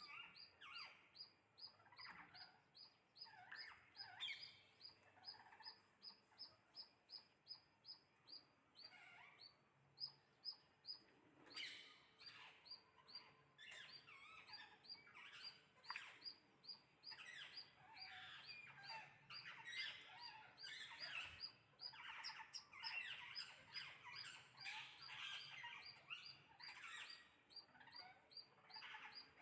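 Birds chirping and calling, faint. A high, even series of chips repeats about two or three times a second through most of it, with other short chirps and calls over it.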